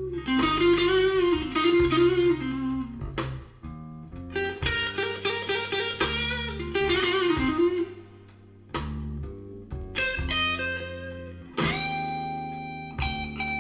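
Blues-rock instrumental passage with a lead electric guitar playing bent notes over bass and drums, ending on a long held note, played back as a sound demo through Soviet 10GDSh full-range loudspeakers.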